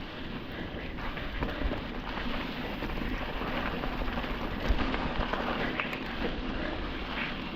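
Mountain bike tyres running over loose dirt and gravel, with a steady crunching rush and scattered small knocks and rattles from the bike.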